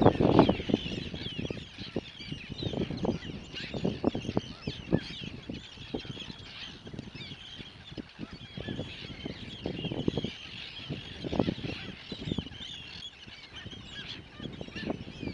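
A flock of geese calling and honking continuously, many short overlapping calls, with irregular low thumps underneath.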